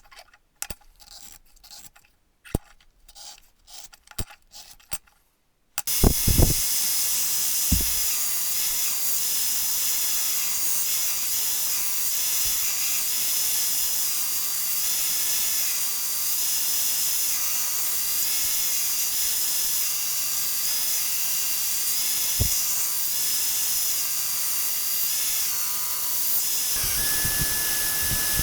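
Light scraping and a few clicks, then about six seconds in a belt sander starts up and runs steadily with a loud hiss, grinding a steel knife blade, with a few dull knocks as the work is handled.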